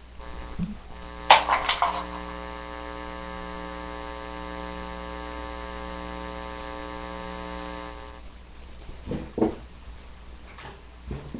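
A steady, even buzz of unchanging pitch runs for about eight seconds and then cuts off suddenly, with a sharp click about a second in. Soft knocks and rustles follow near the end.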